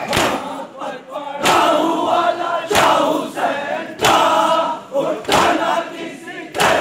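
Crowd of men chanting a mourning lament together, with a sharp collective strike about every 1.3 seconds, the unison chest-beating (matam) of a Shia mourning procession.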